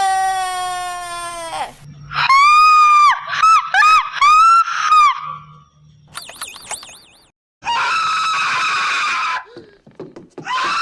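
A string of cartoon scream sound effects, one after another. A long wail falls in pitch and stops, then come several short high-pitched screams, a wobbling high tone, and two harsher, raspier screams.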